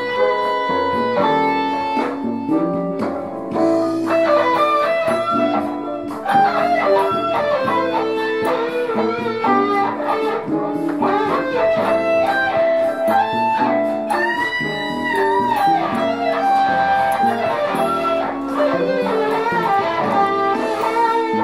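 Electric guitar played through an amplifier over a backing track: melodic lead lines with bent notes, continuous music throughout.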